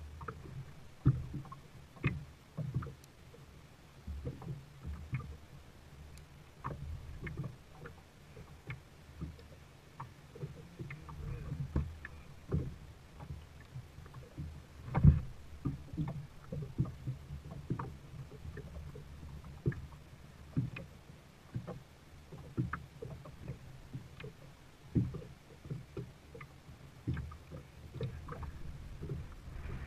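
A plastic sit-on-top kayak being paddled: paddle strokes in the water and frequent irregular knocks against the hull, one louder knock about halfway through.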